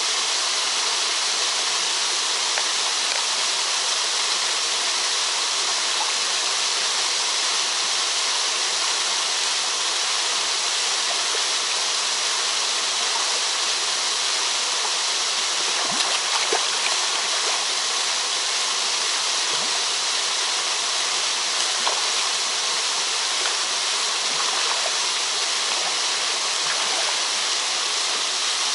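Two thin waterfalls pouring into a shallow rocky pool: a steady rush of falling water, with a few brief splashes a little past halfway.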